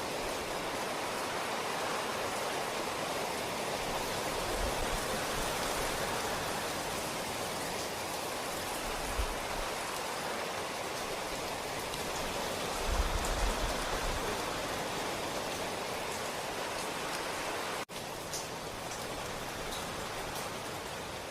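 Steady rain, an even hiss of falling water with a few low bumps along the way. About eighteen seconds in it cuts out for an instant and resumes with single drops standing out more clearly.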